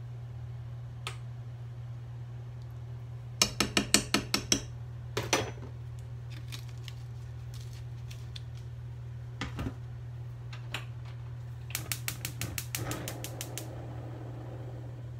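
Two quick runs of light, sharp clicks about a second long each, one a few seconds in and one near the end, with a few single clicks between them, around a pot on a tabletop stove. A steady low hum runs underneath.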